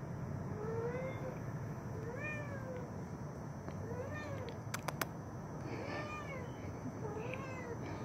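A mother cat meowing repeatedly at her kitten: five short meows, each rising then falling in pitch, about one every second and a half. There are two sharp clicks about five seconds in.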